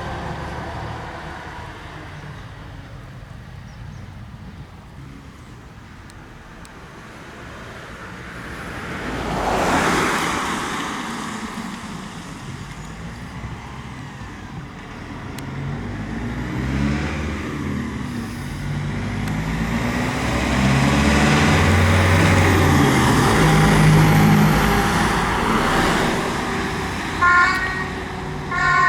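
Heavy fire engine diesel pulling away and climbing through the gears, after another vehicle passes about ten seconds in. Near the end a two-tone emergency siren sounds briefly, then starts again.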